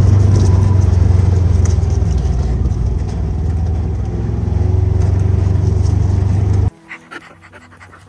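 Utility vehicle's engine running with a steady low rumble, and a pug panting close by. The sound cuts off abruptly near the end.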